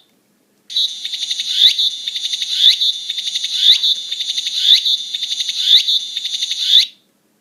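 A recorded cicada song played from the Nakigoe Navi educational toy's speaker: a rapid, high-pitched buzzing pulse with a rising sweep repeated about once a second. It starts and stops abruptly.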